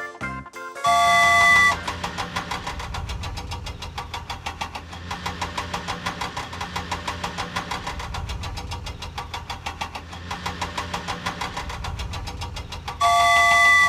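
Cartoon vehicle sound effects: a loud horn-like honk about a second in, then an engine running with rapid, even pulses over a low hum, and a second honk near the end.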